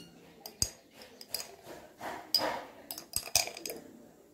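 A metal teaspoon clinking and tapping against a jar and a small white dish while cocoa powder is scooped out and tipped in. There are a handful of separate light taps and a short scraping sound about two and a half seconds in.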